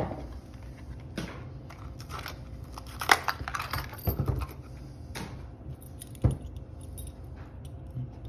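Padlocks being handled: scattered metallic clinks and knocks, about half a dozen spread over several seconds, over a low steady hum.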